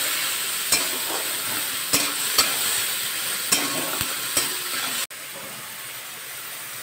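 Sliced onions sizzling in hot oil in a metal kadai, stirred with a metal spatula that clicks and scrapes against the pan about six times. About five seconds in, the sizzle drops abruptly to a quieter level.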